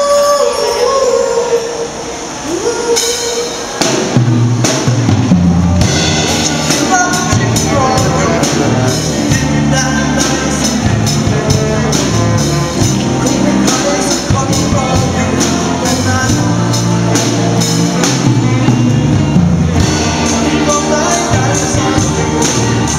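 Live rock band playing: a male singer over electric guitar, bass guitar and drums. A sung note is held and falls at the start, the music drops back briefly, then the full band comes in loudly about four seconds in, with steady drum beats under the vocal.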